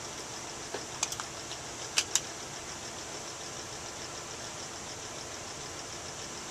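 A few small plastic clicks about a second in, then two sharp clicks about two seconds in, from handling a handheld patient telemetry transmitter as it is powered on. A steady hiss runs underneath.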